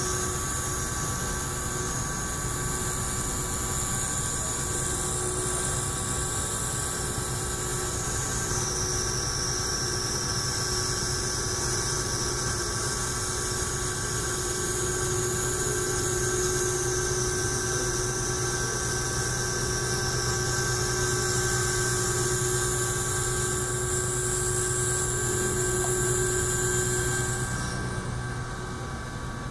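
Solid carbide end mill cutting 4140 steel on a CNC machining centre: a steady, loud mix of spindle whine and cutting noise with several constant tones over a dense hiss. The high whine dips in pitch about eight seconds in and climbs back a few seconds later.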